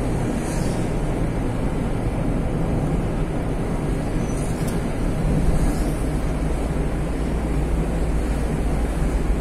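Steady low rumble of road and engine noise heard inside a moving car's cabin, with a few faint brief ticks.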